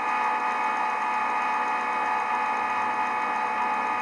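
Simulated CNC vertical machining centre sound from the SwanSoft CNC simulator: a steady machine hum made of several steady tones as the spindle turns and the end mill cuts a straight linear move of the profile.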